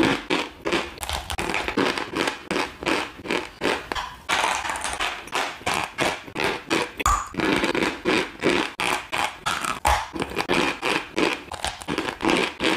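Dry chalk being chewed close to a microphone: a regular run of sharp crunches and crackles, about two to three bites a second.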